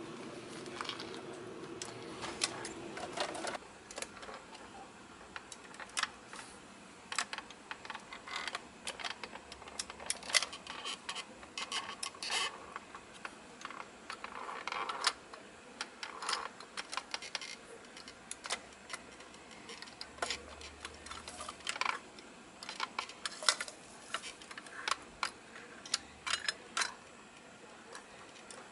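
Irregular clicks and light clatter of a diecast front-loader garbage truck model's forks and a toy dumpster being worked by hand, the forks lifting and tipping the dumpster.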